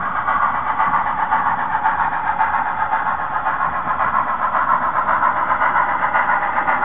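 HOn3 model steam locomotive running with a freight train, giving a steady mechanical rush with a fast, even pulse.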